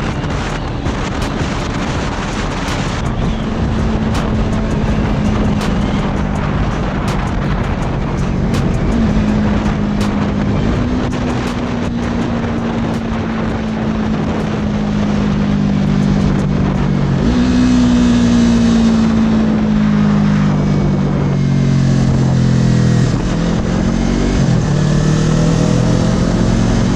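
A 2019 Yamaha R3's parallel-twin engine pulling at freeway speed. Its pitch sags and then jumps a few times with throttle and gear changes, under steady wind noise.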